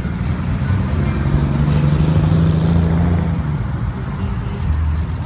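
A classic 1950s sedan's engine and exhaust rumbling as the car drives past and pulls away, loudest about two seconds in, then easing as it moves off down the road.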